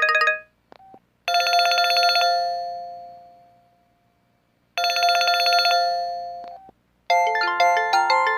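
Mobile phone ringtones played in turn through the phone's small speaker: a fast warbling ring stops, a short beep follows, then a bell-like ring fades away, plays again and is cut short, and a chiming melody starts near the end.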